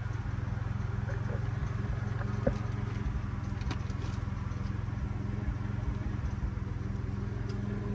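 Portable generator running with a steady, even engine hum, and one short tap about two and a half seconds in.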